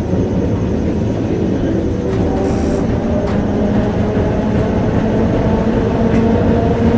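Heritage tram A13 running along its line, heard from inside the car: a steady rumble with a hum of several steady tones, and a brief high hiss about two and a half seconds in.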